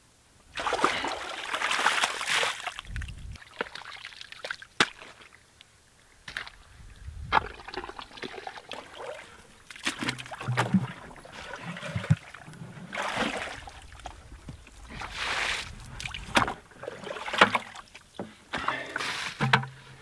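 Shovel digging in wet, muddy soil and muddy water sloshing as it is bailed out of the hole with a plastic bucket, in repeated scrapes and splashes a second or two long with a few sharp knocks between. The water has pooled from a leaking buried irrigation riser.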